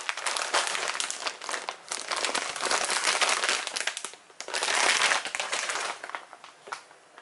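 Packaging such as plastic or paper being crumpled and rustled by hand, in irregular stretches of crackling that fade out near the end.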